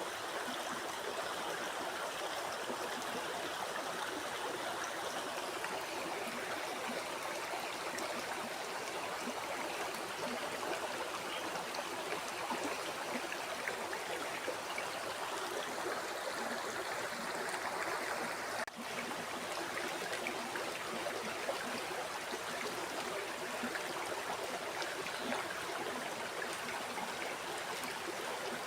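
Flowing river: a steady, even rush and babble of water, with a split-second dip in level about two-thirds of the way through.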